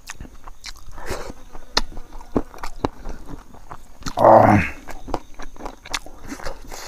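Close-mouthed chewing and eating sounds of a person eating rice with pork innards pickle by hand: soft wet smacks and clicks. About four seconds in comes a brief voiced sound from the eater, the loudest moment.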